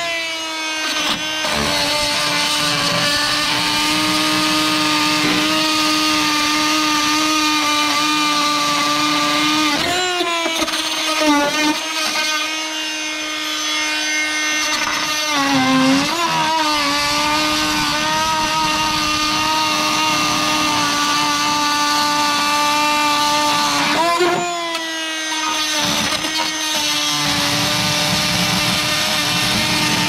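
Rockwell Sonicrafter oscillating multi-tool with a metal-cutting blade running against a weld in rusty sheet steel: a steady high-pitched buzz that sags in pitch about four times as the blade is pushed into the metal and bogs under load.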